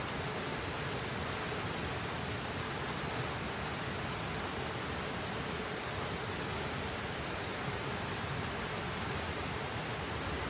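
A river rushing steadily, an even, unbroken hiss of flowing water.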